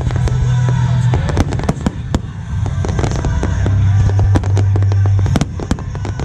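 A fireworks finale barrage: a rapid, irregular string of loud bangs and crackles from many shells and ground-level fountains bursting at once, over music with a sustained low bass.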